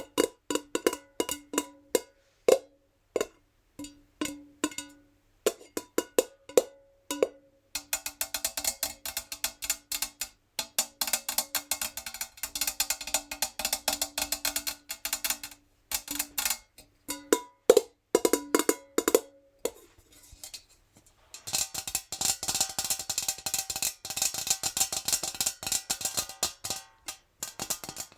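Natural fingernails tapping a metal jar, each tap ringing briefly with the jar's tone. Single taps and short clusters alternate with long runs of very fast tapping, the first about a quarter of the way in and the second after a brief lull about three-quarters through.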